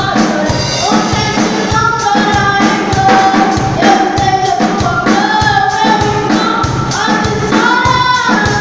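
Gospel worship music: a group of voices singing together over a steady drum beat.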